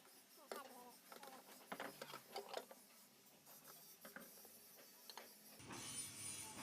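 Faint scattered clicks and light taps of small handling noises, close to silence. About five and a half seconds in, a low hum and a high hiss come in.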